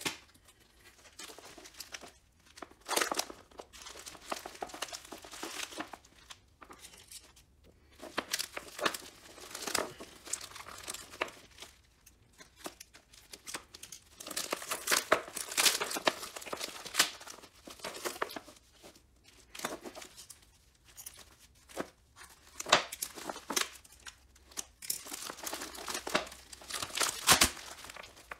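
Plastic vacuum-bagging film crinkling and rustling as it is handled and pressed over breather cloth and a vacuum port, in irregular bursts with short pauses.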